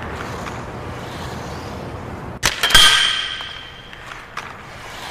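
A steady rushing hiss. About two and a half seconds in, a sharp double hit is followed by a bright metallic ring that fades over about a second.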